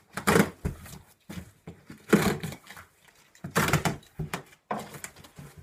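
Cardboard shipping boxes being shifted and handled: four separate bursts of scraping and rustling.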